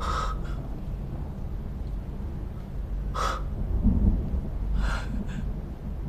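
Low, rolling thunder rumble that swells about four seconds in. Three short, sharp sounds come over it: one at the start, one about three seconds in and one near the end.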